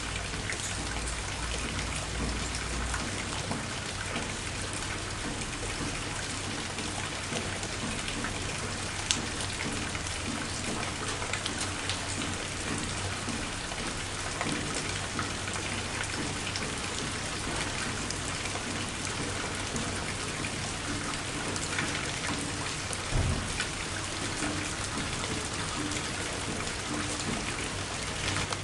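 Steady rain falling, with many separate drops hitting close by. Two louder single knocks stand out, one about a third of the way in and one about four-fifths through.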